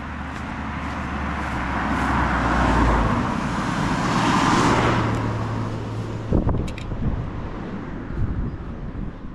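A road vehicle passing close by: its tyre and engine noise swells to a peak over a few seconds and then fades away, with a low engine drone under it. A few sharp knocks follow near the end.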